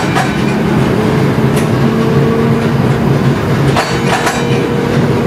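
Gomaco replica Birney streetcar running along its track, heard from inside the car: a steady rumble of motors and wheels, with a higher hum coming in about two seconds in and a few sharp clicks.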